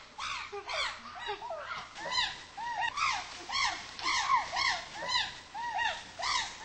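Chimpanzees giving pant hoots: a run of short rising-and-falling hoots, about two a second, from several overlapping voices at different pitches.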